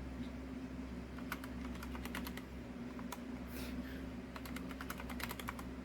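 Typing on a computer keyboard: a run of irregular key clicks that starts about a second in, over a steady low hum.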